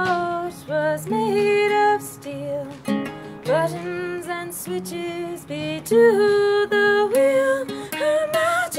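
A woman singing long, held notes that glide up into each pitch, over a strummed acoustic guitar played live.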